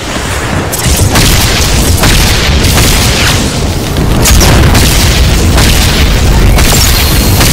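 Animated-action sound effects: a loud, continuous low rumble with a string of booms and crashes, for a whirling tornado and a fire blast hitting it.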